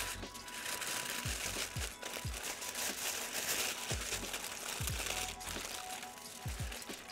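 Aluminium foil crinkling and rustling as it is folded and crimped by hand into a packet around a rack of ribs, over background music with a steady low beat.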